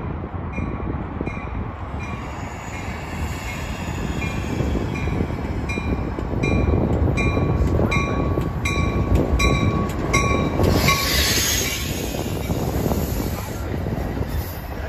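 Metra push-pull commuter train, cab car leading, approaching and passing close with a steady rolling rumble of wheels on rail that builds as the bilevel cars go by. A bell rings about twice a second, growing louder as the train nears, and stops about ten seconds in. Just after that comes a brief hiss.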